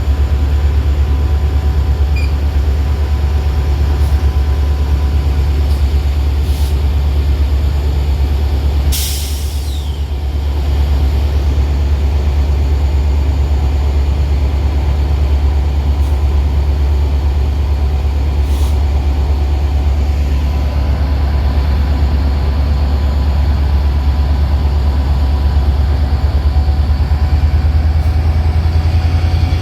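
Steady low drone of a Metra commuter train, with a short loud hiss of air about nine seconds in and a few faint clicks.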